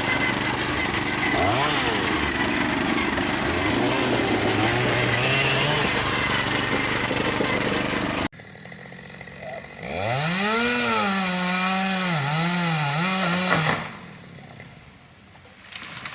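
Honda HP400 tracked carrier's small petrol engine running and being revved up and down repeatedly. After a sudden cut about eight seconds in, it revs up sharply again and holds with a wavering pitch for a few seconds before dropping away near the end.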